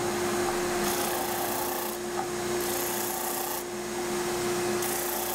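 Shop-made wooden disc sander running with a steady motor hum, while a small block of oak is pressed against the disc in repeated rasping passes of about a second each.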